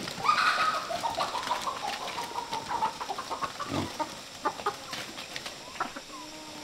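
Chickens clucking and calling, with one long drawn-out call starting just after the beginning and lasting about two and a half seconds. A short low grunt comes a little past the middle, followed by scattered light clicks and clucks.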